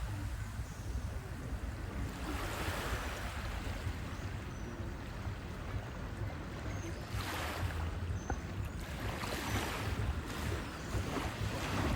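Sea waves washing onto a beach: surges of surf hiss rise and fall every few seconds, with a steady low rumble of wind on the microphone underneath.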